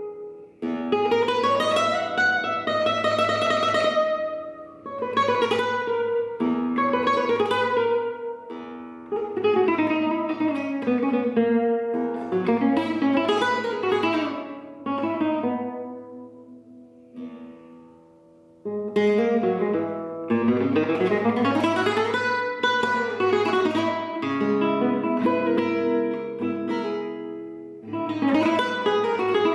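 Lazarides blanca flamenco guitar, a cypress-bodied instrument, played solo in an improvisation: strummed chords alternate with quick single-note runs that rise and fall. Just past halfway there is a short lull of a few softly ringing notes before the playing picks up again.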